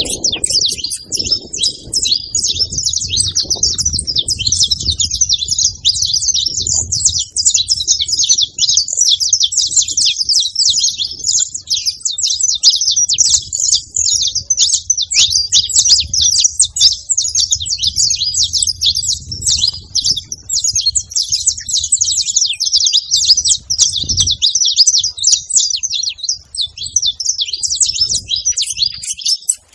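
Saffron finch (canário-da-terra) singing, a continuous run of rapid high chirps and trills without a pause.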